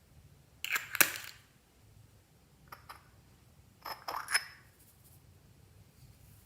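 Slime being worked by hand, giving three short bursts of sharp crackling clicks: about a second in, near three seconds, and again around four seconds.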